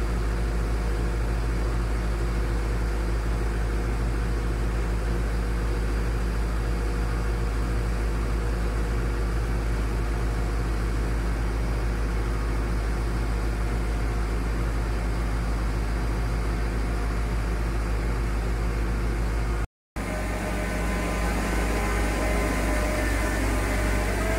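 Engine of a hydraulic conductor-stringing machine (puller-tensioner) running steadily under test, a constant low drone with a hum. Near the end, after a brief break, the sound changes to a running machine with a higher wavering whine.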